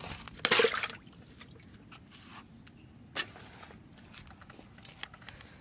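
A live climbing perch splashing in shallow water in a metal bucket: one short splash about half a second in, followed by a few faint knocks.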